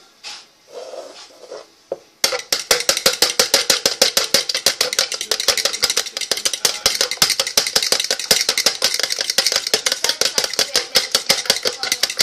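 An egg being beaten by hand in a plastic measuring jug, the utensil striking the jug in fast, even clicks several times a second. The beating starts about two seconds in.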